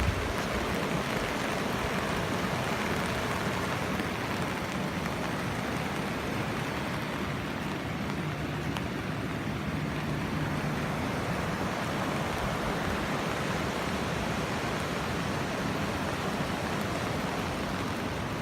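Steady, even rush of water from heavy rain and flood runoff.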